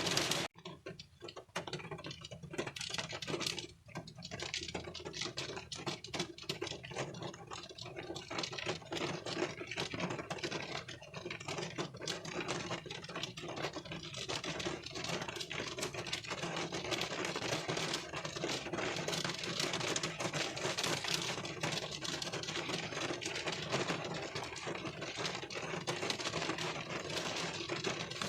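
Rain falling on a car windshield, heard from inside the car: a dense, irregular patter of raindrops hitting the glass, with a brief dip about half a second in.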